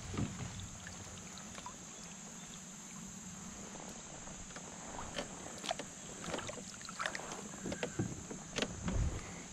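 Small water splashes and handling knocks as a northern pike is lowered from a canoe and released into the river, starting about five seconds in, with a low thump near the end. Under it a steady faint hiss.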